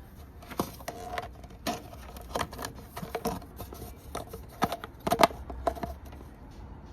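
Irregular sharp clicks and light knocks, about a dozen spread unevenly, some with a brief metallic ring; the loudest comes a little after five seconds in.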